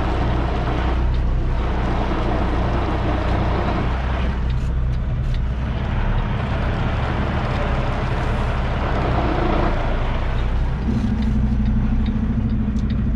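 Semi truck's diesel engine running at low speed while the rig is backed up, heard from the cab. A steadier buzzing drone comes in about eleven seconds in.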